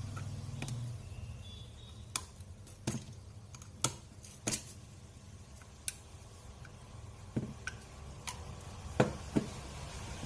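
Light, sharp clicks and small scrapes, about a dozen spread out at irregular intervals, as a thin metal pick works at and pries the plastic end cap of a Xiaomi Mi 10000mAh power bank.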